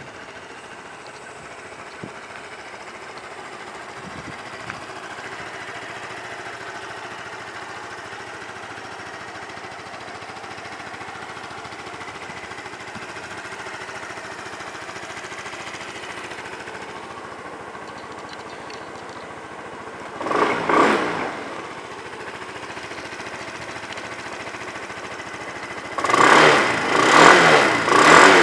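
A 2017 Yamaha Cygnus X SR scooter's 125 cc single-cylinder four-stroke engine idles steadily. About two-thirds of the way through the throttle is blipped once, and near the end it is revved in several quick blips. The seller describes the engine as in good order.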